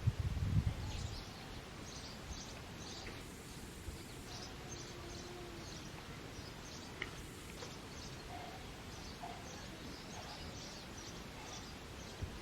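Small birds chirping, many short high chirps repeating throughout over a steady outdoor background hiss, with a few low rumbles in the first second.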